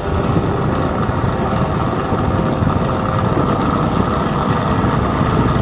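Electric stand fan running: a steady, loud rumbling rush of motor and moving air, with a faint steady hum.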